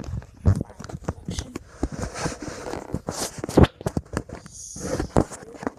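Rustling and irregular knocks and clicks, as of objects being handled and moved, with a sharper knock about three and a half seconds in.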